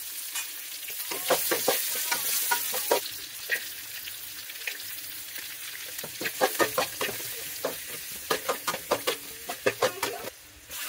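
Vegetables sizzling in hot oil in a metal wok while a metal ladle stirs them, scraping and clacking against the pan in short runs of strikes. The strikes come about a second in, around six seconds, and again from eight to ten seconds.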